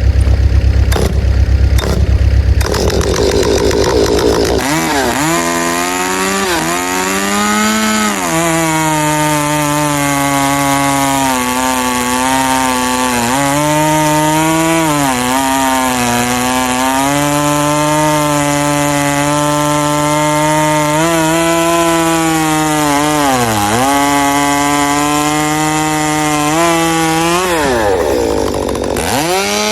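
Straight-piped gas chainsaw idling, then revved to full throttle and cutting through wood for about twenty seconds. Its pitch sags several times as the chain bites, and near the end it drops back to idle.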